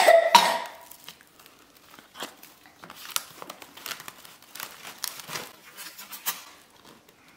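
Irregular crinkling and crackling as a plastic ribbon is pulled off a woven bamboo basket and the basket's lid is lifted open. It opens with a short, loud vocal sound.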